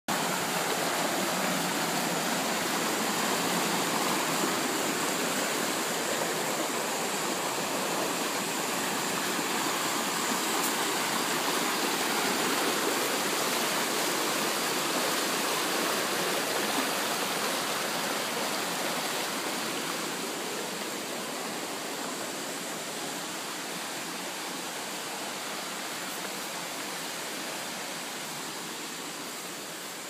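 Small waterfall cascading over rock slabs: a steady rush of falling water, easing off a little over the last ten seconds.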